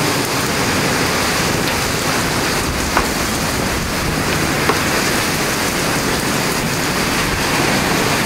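Heavy thunderstorm downpour pouring onto a flooded porch and street: a loud, steady hiss of rain, with a couple of faint ticks partway through.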